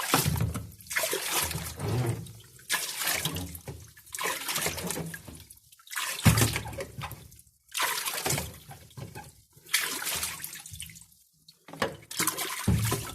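Water splashing in repeated surges, about one a second, with brief pauses between them.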